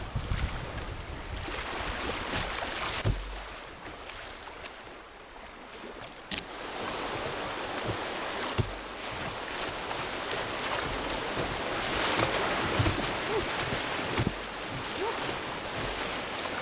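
Whitewater rapids on a river running high from a dam release, rushing around a kayak, with irregular splashes and knocks of water and paddle against the hull. The rush eases for a few seconds near the middle, then builds again.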